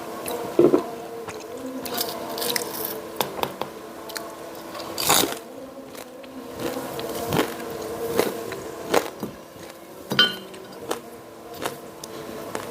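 Crunchy bites and chewing of crispy fried jalakotek pastries: irregular crackling crunches throughout, over a steady background hum.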